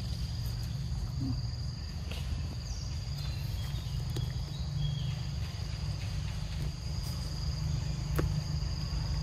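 Steady high-pitched drone of insects, over a low rumble, with a few faint clicks.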